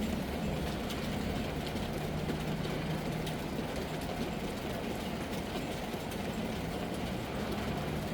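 Heavy rain: a steady, even hiss with scattered drop ticks, over a low steady hum that fades partway through.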